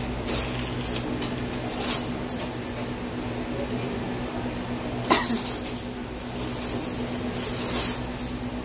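Steady low hum with a few brief knocks and rustles, including one sharp click about five seconds in.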